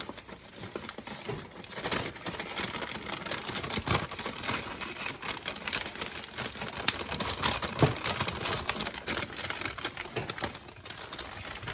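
Popcorn in a paper bag: a long run of rapid, irregular clicking and paper rustling.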